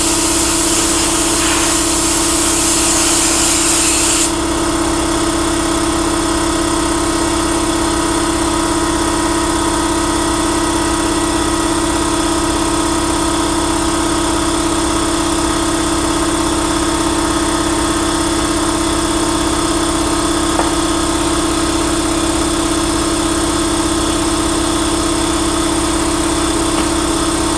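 Pressure-pot sandblaster hissing as it blasts a 1936 Ford truck's steel hood panel, cutting off about four seconds in. Under it a steady engine hum runs throughout.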